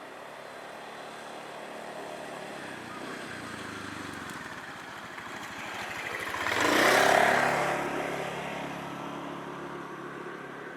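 A road vehicle approaches and passes close by, loudest about seven seconds in, then fades away.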